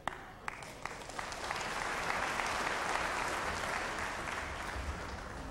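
Audience applauding: a few separate claps at first, swelling into full applause about two seconds in and easing off toward the end.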